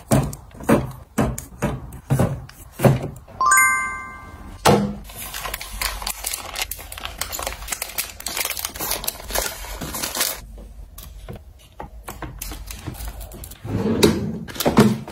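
Quick light knocks and taps as bottles and boxes are set onto a metal wire rack, with a bright ding-like chime about three and a half seconds in. Then a long stretch of crinkling as foil snack packets are dropped into a plastic bin. Near the end come a few thumps as a drawer is pulled open.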